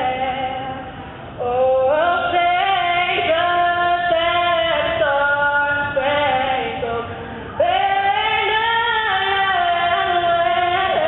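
Singing: a slow melody of long held notes in phrases, with short breaks about a second in and about seven seconds in.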